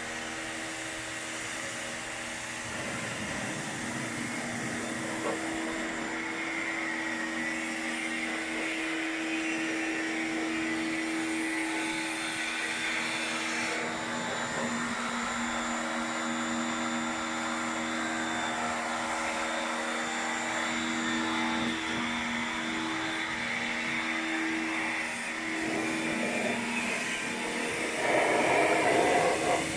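A small electric motor running steadily, a whirring hum over a hiss like a vacuum cleaner or blower, getting louder near the end.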